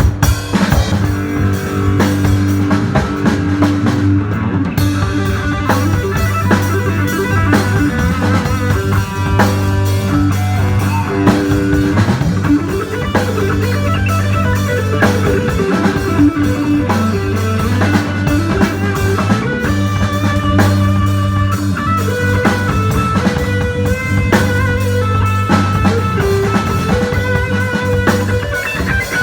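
A live band playing an instrumental: a drum kit keeping a steady beat while a guitar plays melodic lines over long held low notes.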